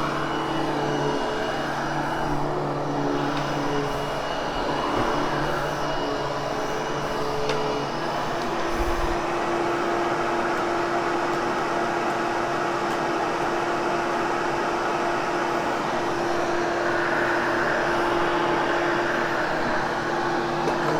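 Vacuum cleaner running steadily while post-vacuuming a freshly cleaned carpet, its motor hum dropping to a lower steady pitch about eight seconds in.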